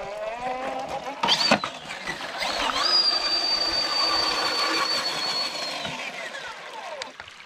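Radio-controlled crawler truck's electric motor whining as it drives, with a loud splash about a second in as it drops into shallow creek water. The whine climbs in pitch around three seconds in, holds high and steady, then winds down near the end as the truck slows on the gravel.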